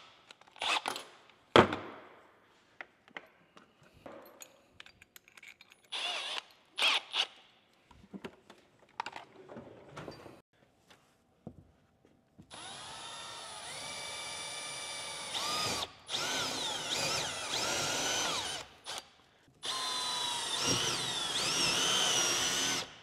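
Milwaukee Fuel cordless drill pre-drilling pilot holes for lag bolts into the wall. After scattered light clicks and knocks, the drill motor runs from about halfway through in three spells of a few seconds each, its whine shifting up and down in pitch as the trigger and load change.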